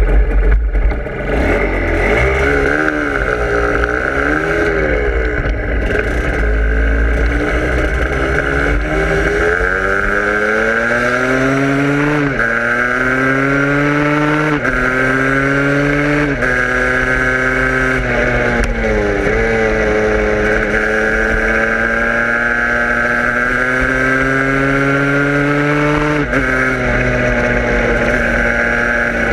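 A vehicle engine accelerating through the gears: its note climbs, then drops sharply at each upshift, five times, and holds steadier between shifts near the end. Heavy low wind rumble on the microphone in the first seconds.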